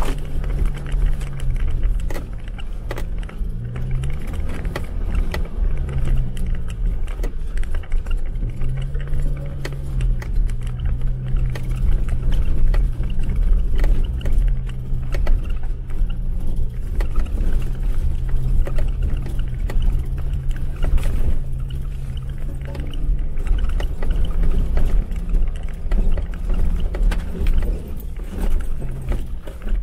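Jeep Wrangler driving off-road, its engine note dipping and rising several times with the throttle, over a heavy low rumble with frequent knocks and rattles.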